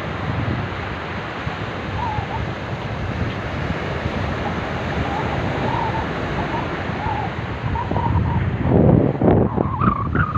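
Sea surf washing on a sandy shore under steady wind blowing across the microphone, with heavier gusts buffeting the microphone near the end.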